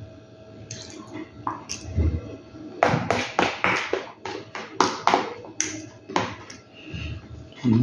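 A metal fork scraping and clicking against the pot as it stirs and scoops spaghetti with minced soy meat, a quick run of short scrapes in the middle.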